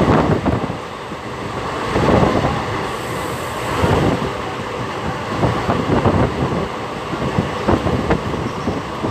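Passenger train running along the track, heard from an open carriage window: a steady rumble and rush of wheels on rails, with knocks every second or two as the wheels pass over rail joints.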